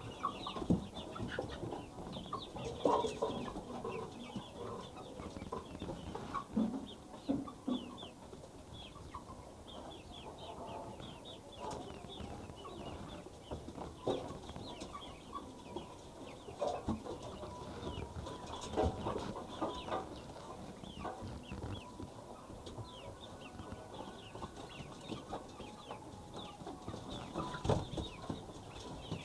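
A flock of local chickens clucking irregularly, with many short, high-pitched peeps going on throughout.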